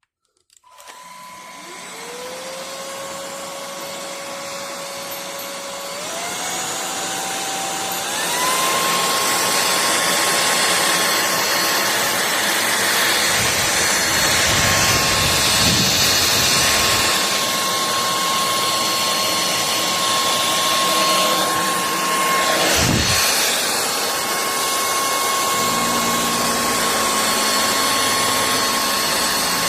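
MIUZZY cordless stick vacuum switching on and spinning up with a rising motor whine. It steps up in pitch and loudness twice within the first several seconds as the power level is raised, then runs steadily at a high whine with a strong rush of air.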